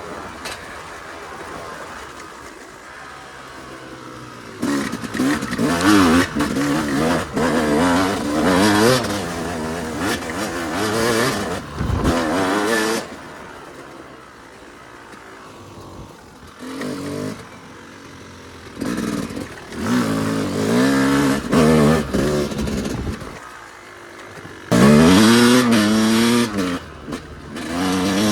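Yamaha YZ250 two-stroke motocross engine under way, in repeated bursts of throttle with the revs rising and falling, between quieter stretches off the throttle.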